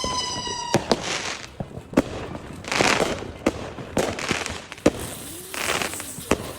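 Fireworks going off. A high whistle ends in a sharp bang under a second in. Then comes a run of bangs and crackling bursts, about one every second or so.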